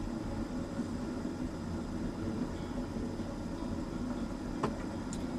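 Gas hob burner running steadily under an open pot brought to the boil, a low even rush, with one light click near the end.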